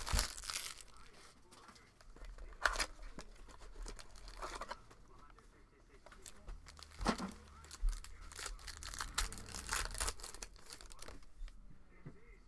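A sealed trading-card box being torn open and its card packs ripped open, with the wrappers rustling and crinkling in irregular bursts.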